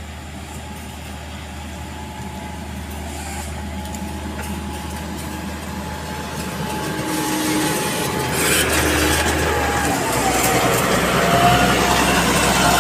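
MG330 motor grader's diesel engine running with a steady low note, growing louder as the machine comes close. From about eight seconds in, the blade cutting into the road edge adds the scrape and crunch of soil.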